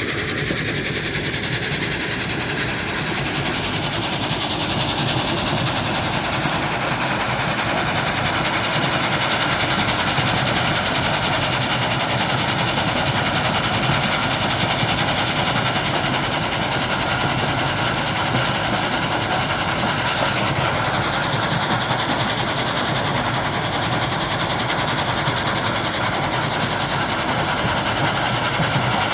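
Crusher plant machinery running steadily: a dense, unbroken mechanical noise at an even level.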